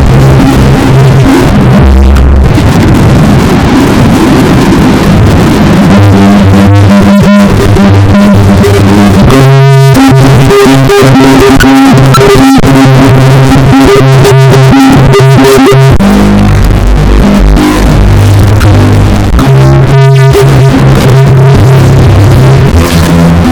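A sneeze sound effect run through a vocoder and pitch-stacking effects, turning it into very loud, distorted, synthesizer-like chords. The chords change pitch every second or two.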